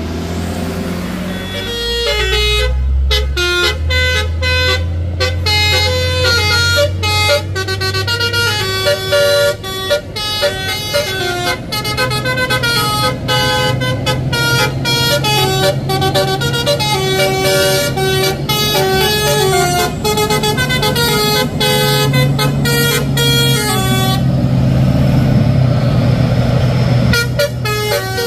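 A truck's musical horn playing a tune of quick stepped notes over the low drone of a heavy diesel engine. The tune breaks off for a few seconds near the end while the engine runs on, then starts again.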